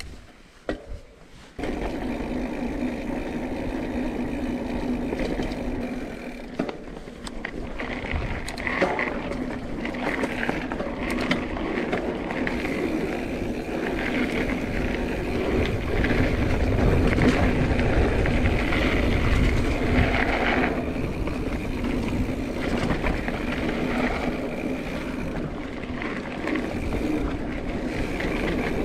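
Mountain bike rolling over a dirt singletrack: tyre noise and the bike rattling, running steadily after a near-quiet first second and a half.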